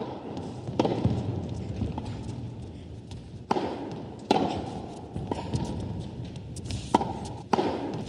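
Tennis rally: a tennis ball struck by rackets and bouncing on the court, a string of sharp, irregularly spaced pops, each with a short ringing tail, over a steady background hiss.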